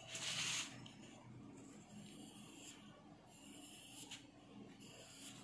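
A hand brushes across drawing paper in a brief rustle at the start. After that comes the faint scratching of a graphite pencil shading on paper in a few short strokes.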